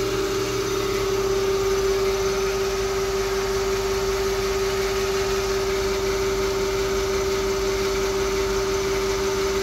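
Thyristor-driven DC motor running under a mechanical brake load, giving a steady hum with one strong unchanging tone. Its speed holds at about 1000 rpm under tacho-generator feedback while the load is raised toward 5 A armature current, so the pitch does not drop.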